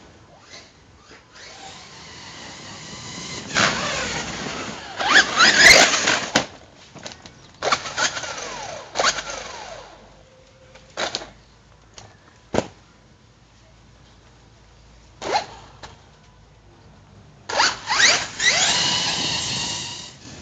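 Brushless electric motor and drivetrain of a Hobao Hyper ST Pro 1/8 RC stadium truck whining in bursts of throttle, the pitch sweeping up as it speeds over grass, with a few short blips in between. The longest run comes near the end.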